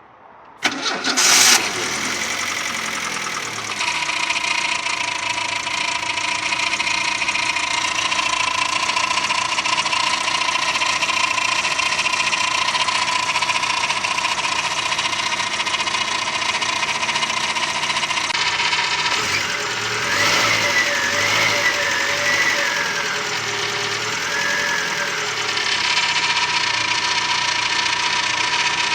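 Volkswagen AP 1.6 four-cylinder engine started up, catching about a second in, then running steadily at idle with a constant high tone over the engine sound. The owner says this strange low-rev noise stays even with the water pump and alternator disconnected, and the timing belt, tensioner and alternator bearing are new.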